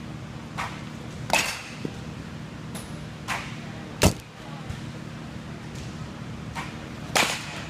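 A bat hitting a machine-pitched baseball with one sharp crack about four seconds in, the loudest sound here. Several softer knocks and clacks come before and after it over a steady low hum.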